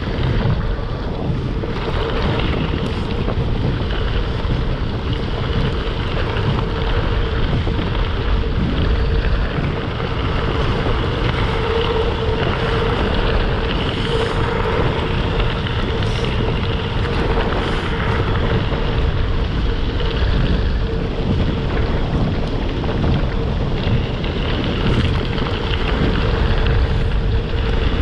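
Wind buffeting an action camera's microphone over the rumble of gravel-bike tyres rolling on a gravel road, with a steady hum throughout.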